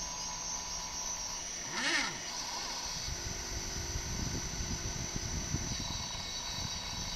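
Stepper motors of a mini CNC laser engraver whining as they move the laser head. About two seconds in the pitch sweeps up and back down, and from about three to six seconds in a steady lower tone holds.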